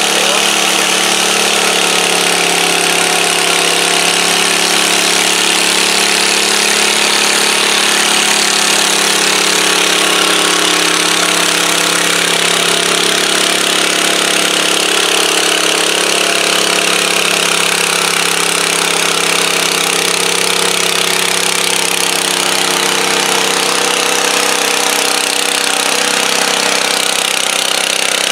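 Wheel Horse garden tractor engine running hard and steady under load as it drags a weight-transfer pulling sled, holding a nearly even pitch.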